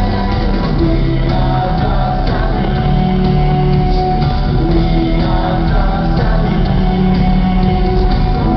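Rock band playing live in an arena, with singing over electric guitars and drums.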